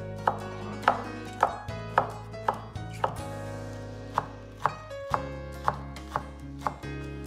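A knife chopping on a cutting board: about a dozen evenly spaced strokes, roughly two a second, with a short pause midway, over background music with steady held notes.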